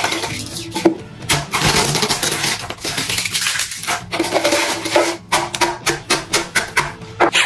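Pringles crisps spilling out of the can onto a plastic-covered table and being crushed by hand: a fast, irregular run of dry crunches and crackles, densest in the second half, over background music.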